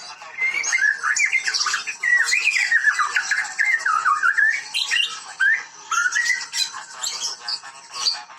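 White-rumped shama (Medan murai batu) singing a long, fast run of varied whistled phrases with quick rising and falling sweeps, thinning to scattered notes near the end.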